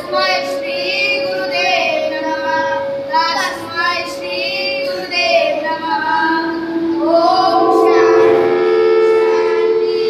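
Children singing a prayer together, the pitch wavering through the first half, then long notes held steadily over the last few seconds.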